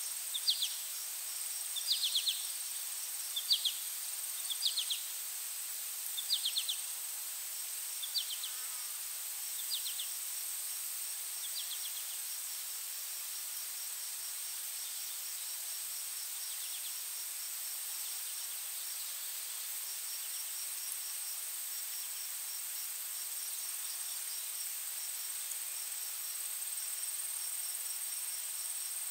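Insect chorus: a steady high-pitched buzz, with a short pulsed chirp about every second and a half that fades away over the first twelve seconds or so. A faint quick ticking joins in later.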